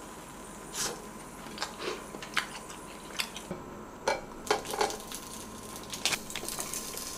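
Scattered light clicks and clatter from handling a plastic food container, packaging and utensils while rice cakes are laid onto the plates of a waffle maker.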